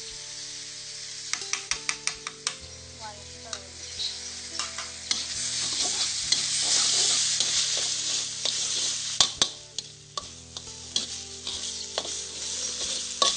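Minced quail sizzling in a wok while a metal spatula scrapes and clacks against the pan in quick strokes. The sizzle swells loudly for a few seconds in the middle, with the clacking thickest near the start and the end.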